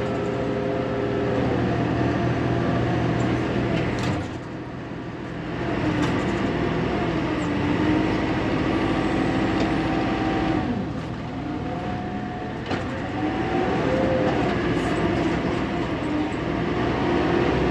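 Diesel engine of a 1999 Fermec TLK760 backhoe running under hydraulic load while digging and loading dirt. Its engine speed dips and rises as the hydraulics work, easing off about four seconds in and again around ten seconds before climbing back.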